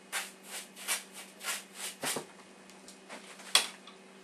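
Fan brush scrubbing acrylic paint onto canvas in quick back-and-forth strokes, a series of short scratchy swishes that thin out after about two seconds. A single sharp tap sounds about three and a half seconds in.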